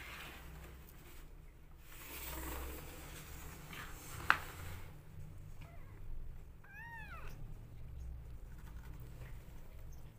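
Kitten meowing while being bottle-fed: a few short mews, then one clear rising-and-falling meow about seven seconds in. Before that come rustling and a single sharp click a little past four seconds, the loudest sound.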